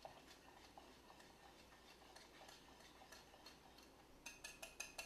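A small metal whisk ticking lightly against the inside of a saucepan, about three or four faint clicks a second, as butter is whisked into pan juices. Near the end comes a run of louder, ringing clinks.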